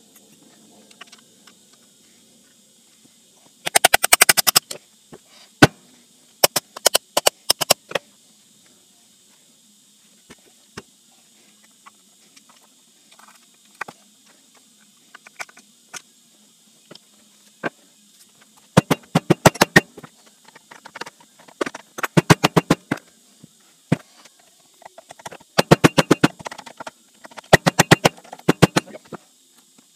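Hand ratchet clicking in about six short, rapid bursts, with a few single clicks between them, as bolts in a three-jaw lathe chuck body are turned.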